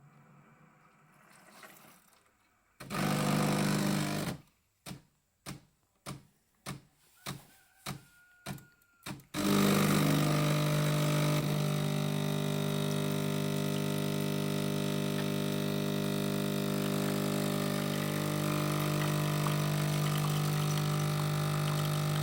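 Siemens EQ300 bean-to-cup coffee machine running a brew cycle: a short burst of machine noise, then eight short pulses about every half second, then a steady loud hum. The machine has the fault of grinding the beans but dumping them in the drip tray and giving only hot water.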